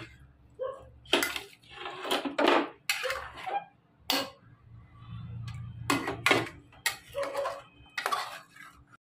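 Steel spoon and ladle scraping and clinking against the sides of an aluminium pot as chunks of marinated chicken are stirred together with the masala, in a series of irregular scrapes and knocks.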